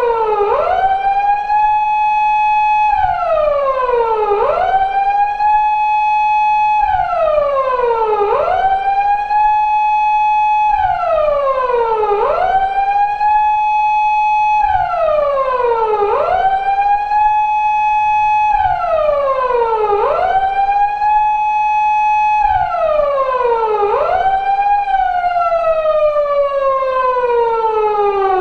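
Recreated Japanese police car siren of the kind used on 170- and 180-series Toyota Crown patrol cars, wailing on a four-second cycle: a quick rise, a high tone held for about two seconds, then a fall. Near the end it winds down in one long falling glide.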